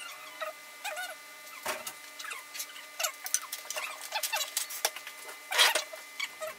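Metal spoons scraping and tapping against a glass baking dish and a ceramic mixing bowl while a cream mixture is spread over graham crackers, with many short squeaks and light clicks. One louder clink comes about five and a half seconds in.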